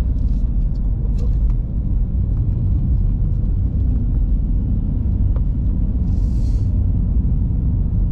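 Steady low rumble of road and engine noise inside a moving car's cabin, with a brief hiss about six seconds in.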